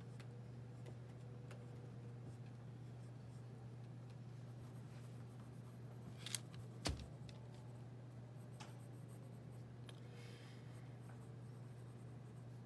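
Pencil faintly scratching on drawing paper in small strokes, over a steady low hum. Two sharp clicks about six and seven seconds in.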